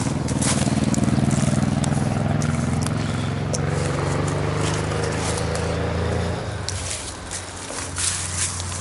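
A motor vehicle engine running steadily, fading out about six and a half seconds in, over the rustle of footsteps in dry leaves.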